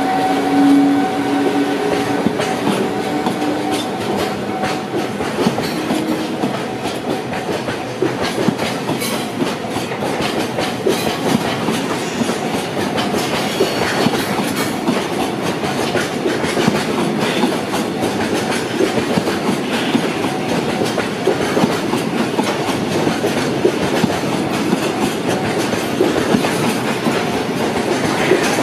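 Freight train of petroleum tank wagons rolling past close by, its wheels clacking steadily over rail joints. During the first several seconds a steady electric hum from the EF210 electric locomotive's drive fades away as the locomotive pulls ahead.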